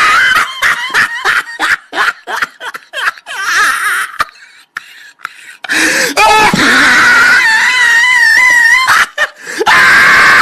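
A person laughing loudly in quick bursts, then after a short pause a high, wavering wail held for about three seconds.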